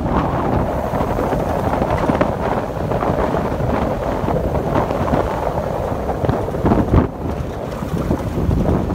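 Wind buffeting the microphone in loud, uneven gusts.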